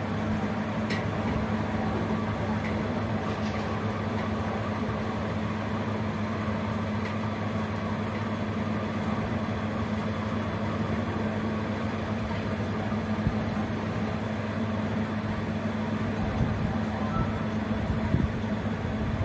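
Steady low mechanical hum of a small motor with an even hiss above it, unchanging throughout.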